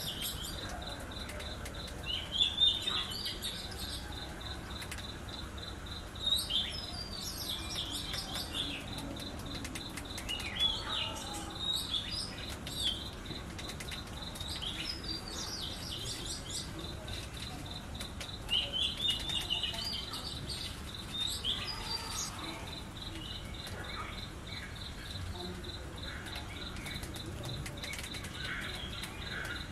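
Birds chirping in short clusters every few seconds over a steady, fast, high-pitched pulsing trill.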